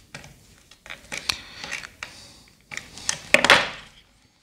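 Small metallic clicks of needle-nose pliers gripping and bending a solid copper wire into a ring. About three seconds in there is a louder, brief clatter as the pliers are set down on the wooden board.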